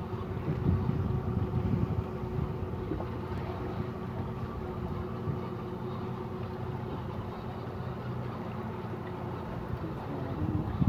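Small fishing boat's engine running steadily under way, a constant hum, with wind and water noise along the hull.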